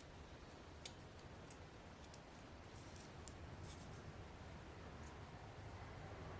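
Faint, scattered small clicks of metal padlock parts being handled during reassembly, with one sharper tick about a second in, over a low room hum.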